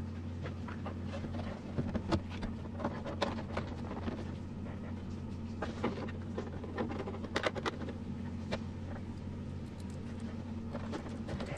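Hard plastic RC body parts clicking and tapping as hands handle them and fit a small part onto the interior tub, over a steady low hum.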